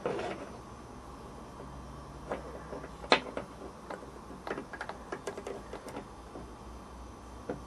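Light metal clicks and taps of an adjustable spanner and an Allen key working the nut on a model beam engine's crank arm, a dozen or so scattered ticks with the sharpest about three seconds in.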